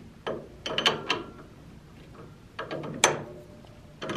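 Oneway Stronghold scroll chuck being tightened with its T-handle chuck key onto a 3D-printed plastic collet: two bursts of metal clicks and knocks, the loudest about three seconds in.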